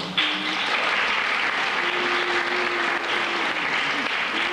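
Audience of schoolchildren clapping, starting suddenly just after the readers finish and keeping up a steady patter.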